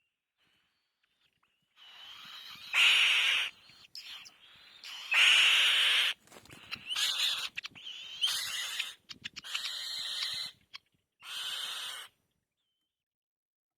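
Bird chick giving harsh, hissing begging calls for food, in a series of bursts of about a second each, with a few short clicks between them.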